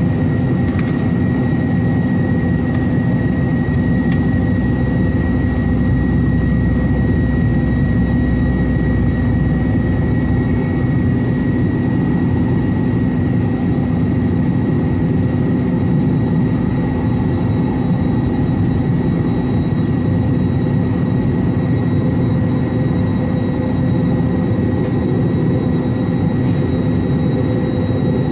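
Airbus A321-211's CFM56 jet engines and airflow heard from inside the cabin in flight: a steady rushing noise with a constant hum and a thin high whine, unchanging throughout.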